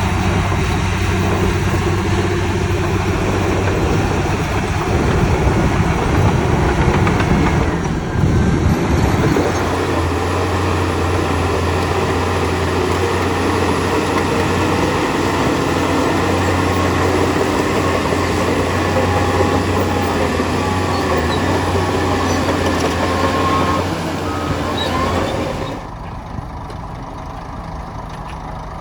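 Heavy diesel engines of earthmoving machinery running steadily under load. The sound changes abruptly about eight seconds in and drops to a quieter running engine near the end.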